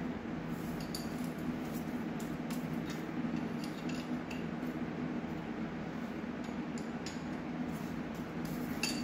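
A wrench working the intake manifold nuts on a Triumph TR6 engine, giving faint, scattered metallic clicks at irregular intervals over a steady low hum.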